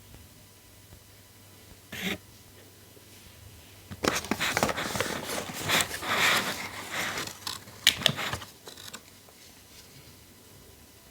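Packaging handled by hand while unboxing a tablet: a brief rustle about two seconds in, then about four and a half seconds of irregular rustling and crinkling with sharp clicks, the sharpest near the end of it.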